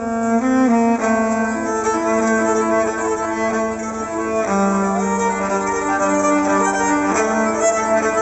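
Live band music: a violin plays a slow melody of long held notes over a sustained string-like accompaniment.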